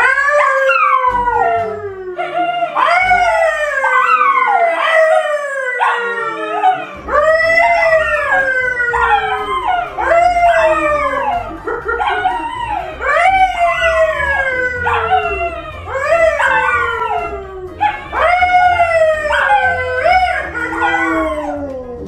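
A yellow Labrador retriever and a brown poodle howling along with a man who howls to them: a long run of loud, overlapping howls, each one sliding down in pitch.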